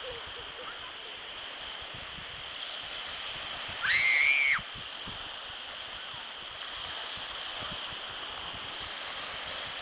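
Small waves washing in over the shore in a steady hiss. About four seconds in, a child gives one high squeal lasting under a second, the loudest sound here.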